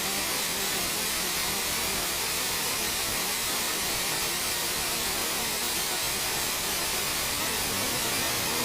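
Sci-fi wormhole sound effect: a steady, even rushing hiss like white noise, bright and high, with no tone or rhythm.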